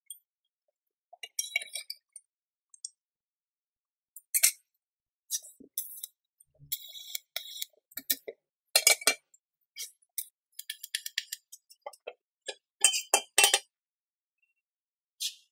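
Steel parts clinking and knocking on a worktable as a round steel rod is slid through a square steel tube and handled: a string of separate clinks and knocks with silent gaps between them. About seven seconds in comes a short crackle from a tack weld at the joint of rod and tube.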